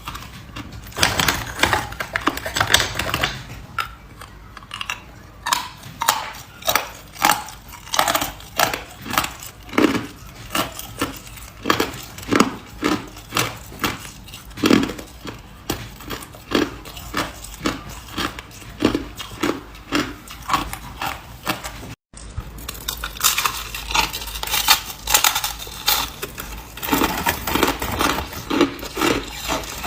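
Hard ice being bitten and chewed, a steady run of sharp crunches about one to two a second, with a brief break a little after twenty seconds in.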